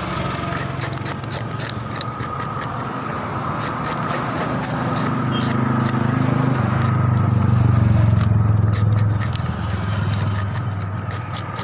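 A blade scraping the scales off a tilapia against a wooden chopping block in quick, irregular strokes, each a short sharp rasp. Under it a low engine hum runs throughout, swelling louder about halfway through and easing off near the end.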